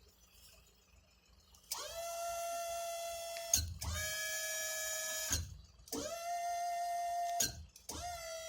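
Zepro truck tail lift's electric hydraulic pump motor running in four short bursts, each quickly spinning up to a steady whine and stopping after a second and a half to two seconds, with a low clunk around the stops and starts.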